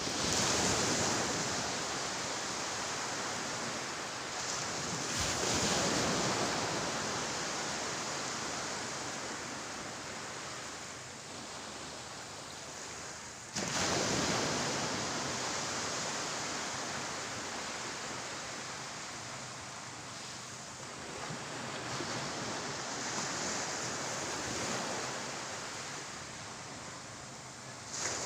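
Ocean surf: a continuous rush of waves that swells and falls back every several seconds, with a sudden surge about halfway through.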